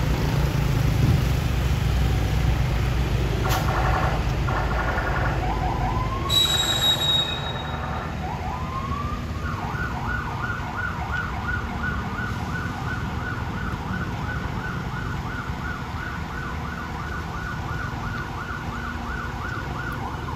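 Heavy truck engines running low, then about halfway through a police car siren starts up and keeps yelping, fast rising sweeps about twice a second.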